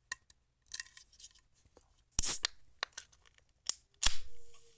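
Aluminium can of Monster energy drink being opened: small clicks of fingers on the tab, a loud crack about two seconds in, then a second loud crack near the end followed by a short fizzing hiss as the carbonated drink vents.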